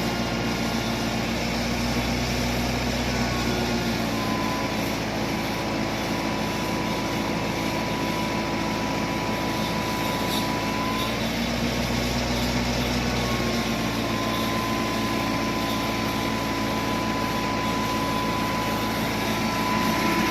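An engine running steadily at a constant pitch, with a high, thin whine that comes in twice and drops away.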